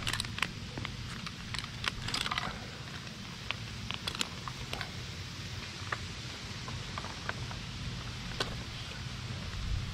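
Scattered light clicks and knocks of climbing hardware, carabiners and rope being handled against a tree trunk, over a steady low rumble.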